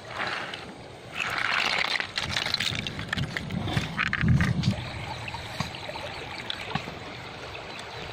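Water sloshing and splashing, with clicks of snail shells knocking together, as a hand stirs river snails in a pot of water. About halfway through this gives way to the steady rush of a shallow stream.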